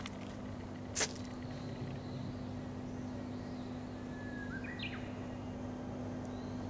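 A bird's short call, a few quick notes stepping upward in pitch, about four and a half seconds in, over a steady low hum. A single sharp click about a second in is the loudest sound.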